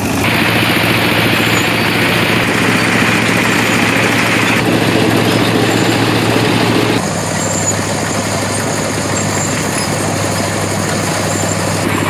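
Engine running steadily, its sound changing abruptly a few times.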